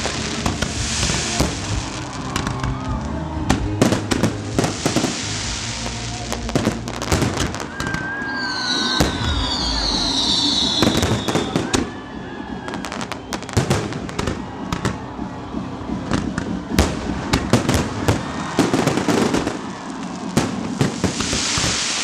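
Fireworks display going off: a rapid, irregular string of bangs and crackles over a steady hiss, with a few high falling whistles about nine to eleven seconds in. Music plays underneath.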